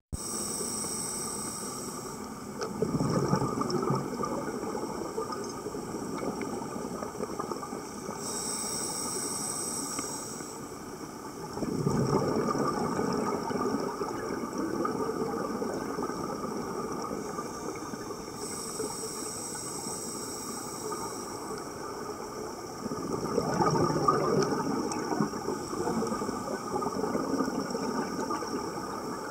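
Scuba breathing through a regulator, heard underwater: a hissing inhale followed by a longer burst of bubbling exhaust. Three breath cycles, roughly ten seconds apart.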